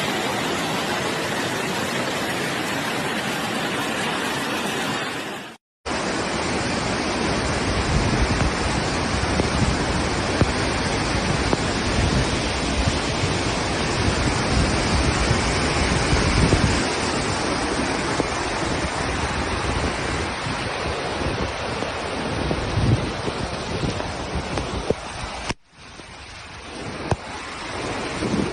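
Steady rush of water, as from floodwater or torrential runoff, without words. It comes in three clips, with a sudden break about five and a half seconds in and another shortly before the end.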